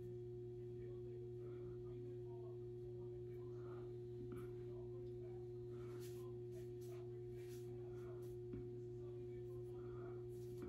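Faint steady hum of room tone, holding a few fixed tones, with a few soft rustles.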